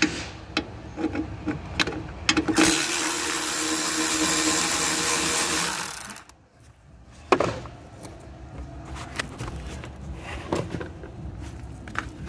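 Handheld power tool spinning steadily for about three and a half seconds, backing out a fastener on the shifter-cable bracket, then stopping abruptly; a sharp knock follows about a second later amid small clicks of parts being handled.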